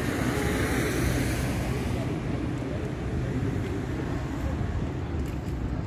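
Street traffic: a steady low rumble of vehicle engines, with a vehicle passing by in the first two seconds, then a few faint ticks near the end.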